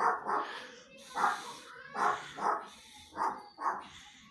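A dog barking: about seven short barks, mostly in quick pairs.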